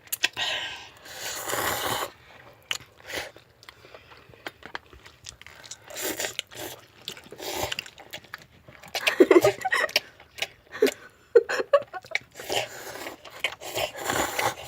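Instant ramen noodles being eaten: slurping and chewing in irregular bursts, loudest past the middle.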